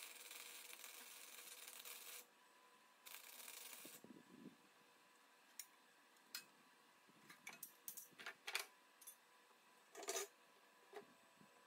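Wire-feed welder arc on steel angle iron: a steady crackling hiss for about two seconds, then a second shorter burst about a second later. After that come scattered sharp clicks and clanks of steel clamps and angle iron being handled.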